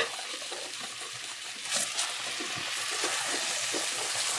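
Eggplant and potato frying in curry paste with little liquid in a pot (the bunjay stage), sizzling with a steady hiss that grows from about halfway. A spatula stirs and scrapes through the vegetables, with a short knock about two seconds in.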